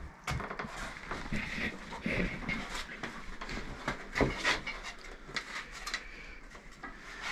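Irregular knocks and scuffs of footsteps on wooden scaffold planks as a heavy aerated concrete (Ytong) block is lifted and carried.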